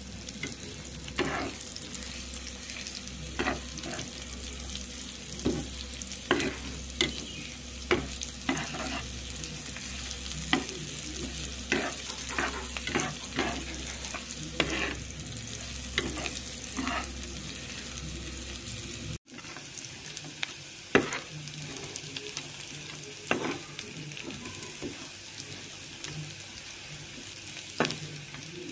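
Chopped shallots, garlic and bird's eye chillies sizzling in hot oil in a nonstick frying pan, with a metal spatula scraping and knocking against the pan at irregular strokes about once a second. The sound drops out for an instant about two-thirds through, then the sizzle and stirring carry on.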